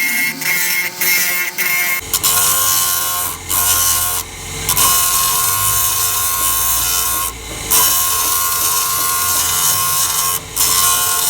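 A power grinder working on the teeth of a rusted metal gear: a steady high whine over a harsh grinding hiss. It breaks off briefly a few times, as if the tool is lifted from the work. Its pitch drops and a low rumble comes in about two seconds in.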